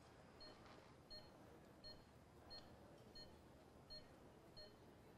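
Hospital bedside patient monitor beeping faintly: short, high beeps at an even pace, about one every 0.7 seconds, each marking a heartbeat.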